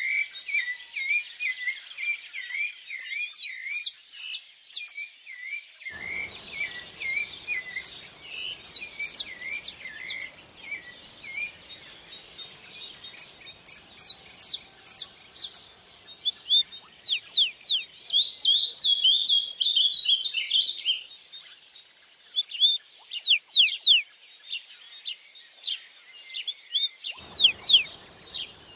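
Several songbirds singing together: fast repeated chirps and trills, short high clusters of notes, and quick falling whistled sweeps. A faint stream runs underneath during parts of it.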